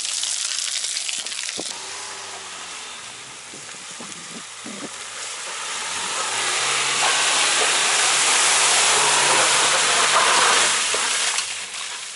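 Dacia Duster driving through deep wet mud: a loud hiss of tyres spinning and throwing mud. About halfway through, the engine note rises and holds steady revs under load for a few seconds, then fades near the end.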